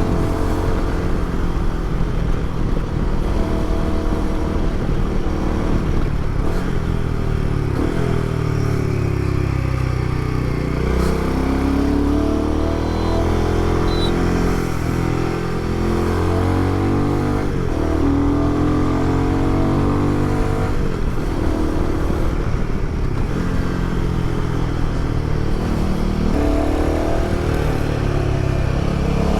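Royal Enfield Himalayan 450's single-cylinder engine through a prototype aftermarket exhaust, heard from the moving bike, its pitch climbing and falling again and again as the rider accelerates and backs off. The exhaust note is only a little louder than stock, muted by a U-turn routed mid-pipe in place of the stock resonator box.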